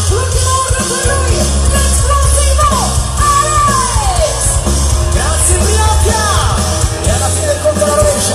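Loud concert music from a stage sound system, with singing over a heavy, steady bass, heard from within a large crowd.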